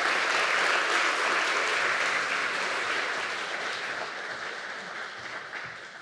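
Audience applauding, loudest at the start and slowly dying away toward the end.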